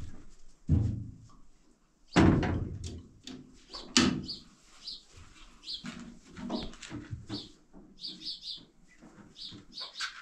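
Loud knocks and clatter as a metal kettle and a woven cover are handled on a gas stove, three hard knocks in the first four seconds. After that come many short high chirps, repeating irregularly.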